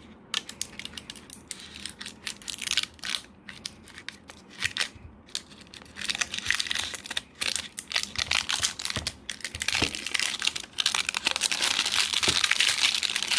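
Plastic shrink-wrap being torn and peeled off a sealed vape-kit box: scattered handling clicks and scrapes at first, then crinkling that grows denser and louder over the second half.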